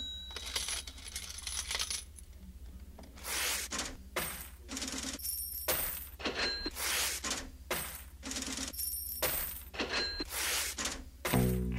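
Coins dropping and clinking one after another, about two sharp chinks a second, some with a short metallic ring. Music comes in near the end.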